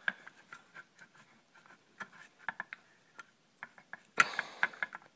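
Hard plastic holster and metal angle bracket being handled and fitted together by hand: scattered light clicks and scrapes, with a louder clatter of clicks about four seconds in.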